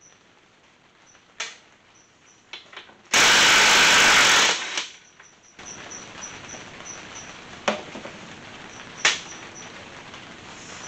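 Cordless drill spinning for about a second and a half, backing a bolt out of the NP231 transfer case halves, with a few sharp clicks of tool and bolt handling around it. A steady hiss follows in the second half.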